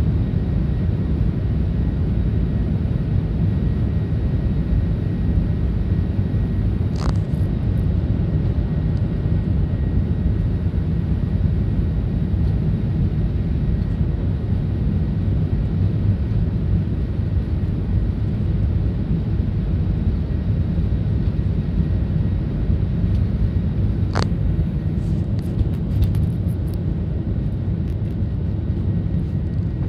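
Jet airliner's engines at takeoff power heard from inside the cabin: a loud, steady rumble through the takeoff run and initial climb. A sharp click about a quarter of the way in and another near the end.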